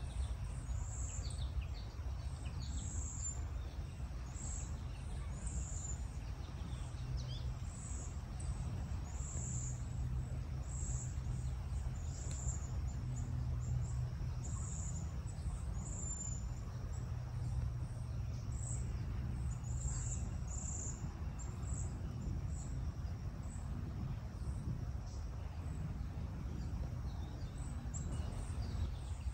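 Outdoor ambience: a steady low rumble, with a short, high, thin chirp repeating about once a second throughout and a few fainter calls in the first seconds.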